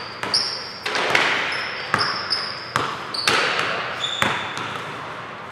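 Basketball bouncing repeatedly on a hardwood gym floor, about once a second, each bounce ringing off in the large hall, with short high sneaker squeaks on the court between bounces.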